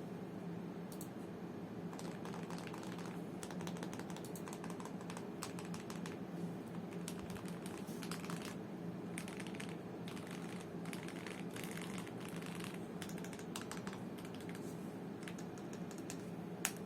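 Continuous typing on a Gamakay/Womier K87 mechanical keyboard fitted with Krytox-lubed Gateron Yellow linear switches and XDA-profile keycaps: a dense, irregular run of keystroke clicks, with one sharper, louder click near the end.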